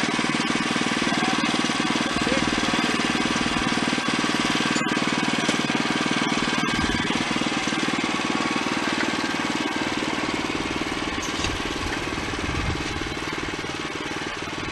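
Woodmizer LX25 band sawmill running, a loud steady machine noise with a fast chattering texture that eases slightly near the end.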